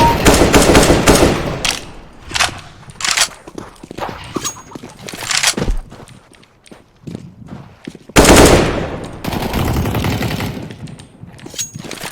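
Gunfire from a first-person shooter game: bursts of automatic fire and scattered single shots. The loudest stretches are at the start and a heavy burst about eight seconds in.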